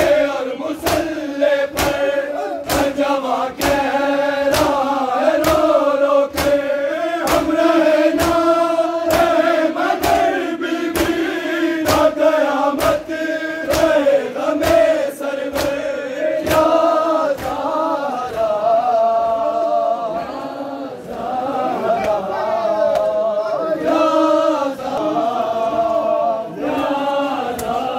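A crowd of men chanting a nauha in unison, with voices held on long notes, over a steady beat of hand-on-chest slaps (matam), about three strikes every two seconds.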